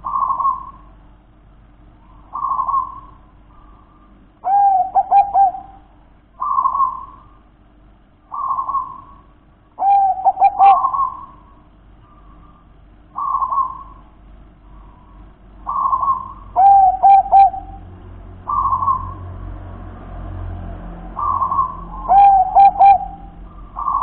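Zebra dove (perkutut) cooing: a short coo about every two seconds, and four times a louder phrase that ends in three quick rolling notes.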